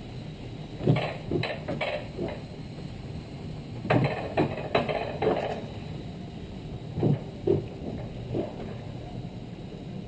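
Rail-mounted bobsled car running down its metal tube track, with a steady rolling rumble and bunches of sharp metallic clacks and knocks about a second, four seconds and seven seconds in.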